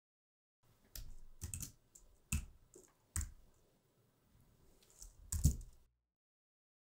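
Computer keyboard keystrokes entering editing shortcuts: a handful of short clicky taps, beginning about a second in, spaced out, with a last small cluster about five seconds in.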